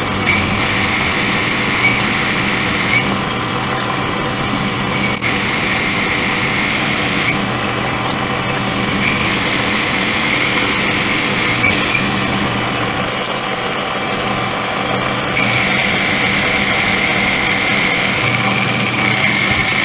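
A machine tool running steadily and cutting metal, enlarging a hole in a part: a constant motor hum with a higher cutting tone that comes and goes and is strongest in the last few seconds.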